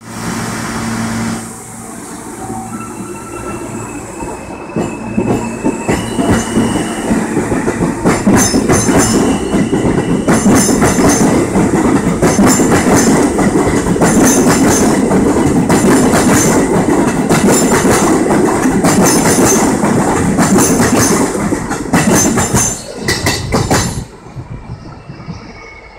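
Alstom R160B subway train pulling out of the station close by: a motor hum and a whine at first, then a loud rumble with rapid, regular wheel clicks over the rail joints as the cars speed past. The sound drops away suddenly near the end as the last car clears.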